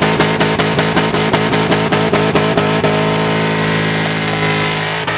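Rock music with a fast, steady drum beat over sustained chords. About three seconds in, the drums drop out and a held chord rings on alone.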